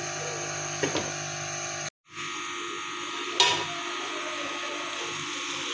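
Steady buzzing hum of a small electric motor, with a couple of short knocks and a brief cut-out about two seconds in.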